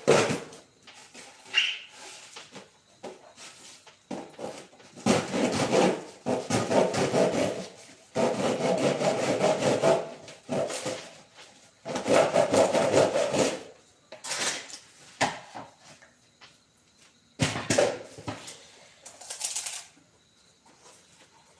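A carved wooden piece being sanded by hand: sandpaper rubbing back and forth on the wood in spells of one to two seconds, with short pauses between.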